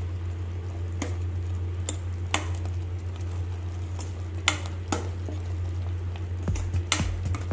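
A slotted metal spoon stirs thick tomato masala in a pressure cooker, knocking and scraping against the pot's metal side every second or two, five knocks in all. A steady low hum runs underneath.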